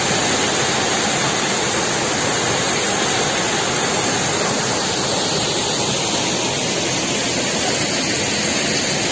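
Kodige Falls on the Nethravathi River pouring: a steady rush of falling water.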